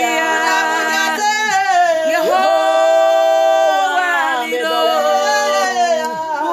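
Women singing an unaccompanied Twi gospel worship song in full voice, holding one long note about two seconds in before the melody moves on.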